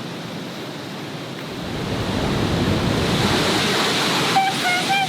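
Roar of the Pailón del Diablo waterfall: a steady rush of heavy falling water and spray that swells louder about two seconds in, with wind buffeting the microphone. A short, high, wavering call sounds near the end.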